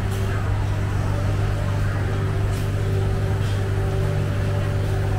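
Steady low mechanical hum with a faint wash of background noise, unchanging throughout.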